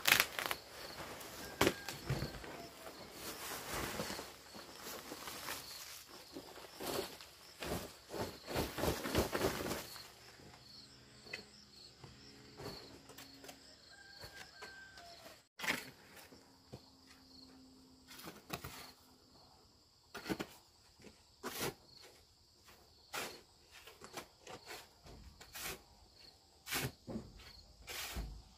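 Repeated scraping and tapping from hand work, dense for the first ten seconds and then sparser single knocks, over a steady high chirring of insects.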